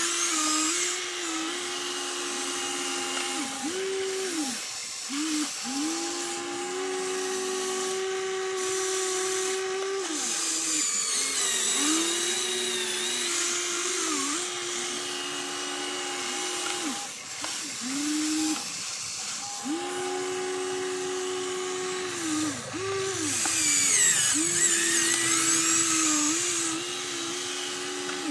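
Electric motors of a Huina RC excavator whining as it digs and swings, in repeated runs of one to three seconds that start and stop abruptly and step up and down in pitch with each movement.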